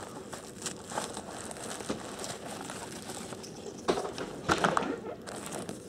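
Clear plastic and tissue wrapping crinkling as hands handle a boxed model locomotive, with cardboard pieces being lifted out of the box. The handling is soft at first, with a louder stretch of rustling and knocks about four seconds in.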